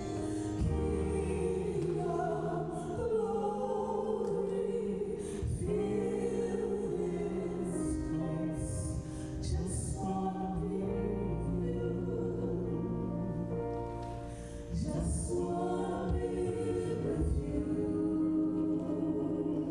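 Gospel-style worship music: singing voices over a praise band's sustained instrumental accompaniment.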